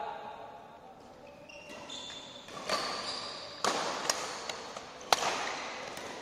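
Badminton rally: sharp racket strikes on the shuttlecock, three of them in the second half, with short high squeaks of court shoes on the floor before them.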